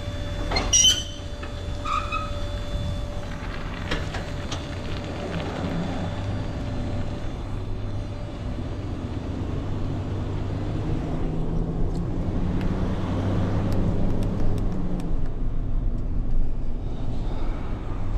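Pickup truck driving with an empty dumpster trailer in tow: steady engine and road noise that swells a little through the middle. About a second in there are a couple of short high squeaks, and a scatter of sharp clicks and rattles comes later.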